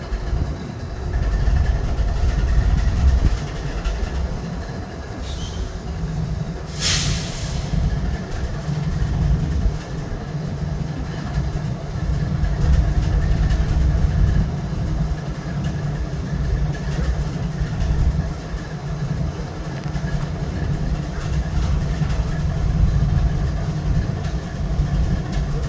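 GE ES40DC diesel locomotive's GEVO-12 V12 engine idling steadily with a low rumble. A short hiss comes about seven seconds in.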